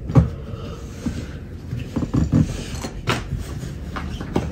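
Handling noise as a PlayStation 5 console is worked into a soft-sided rolling duffel bag: scuffing and rustling of the bag with a few dull thumps, one just after the start, a couple a little over two seconds in and one about three seconds in.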